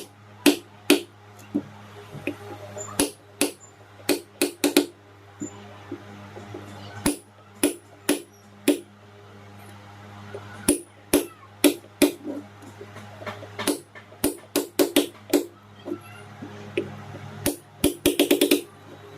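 Hammer tapping a metal punch against a ceiling fan's steel shaft: light, irregular strikes with a quick flurry of taps near the end. The punching raises marks around the shaft so it fits tight in a worn bearing.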